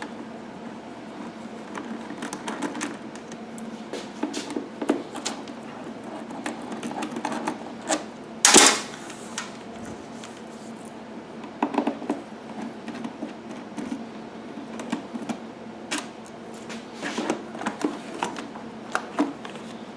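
Phillips screws being backed out of a Honda EU1000i generator's plastic back cover, with the cover handled: scattered light clicks and taps of screwdriver and plastic over a faint steady hum, and one brief, louder scrape about eight and a half seconds in.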